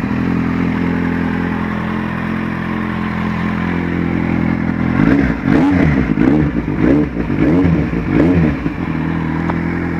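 Motorcycle engine idling steadily, then revved in several quick throttle blips from about five seconds in, before settling back to idle.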